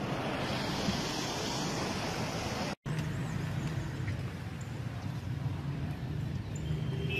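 A steady rushing noise of heavy rain and running water. After an abrupt cut about three seconds in, the low steady hum of a vehicle engine runs under the noise.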